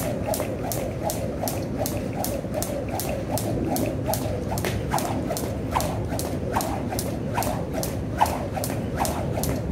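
Jump rope skipping at a steady pace, the rope ticking against the floor about three times a second over a constant low background noise.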